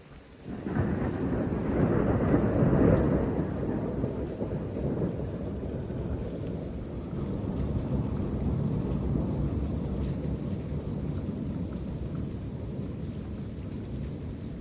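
A thunderclap breaks about a second in, loudest for the next two seconds, then rolls on as a long low rumble that slowly eases off, over steady rain.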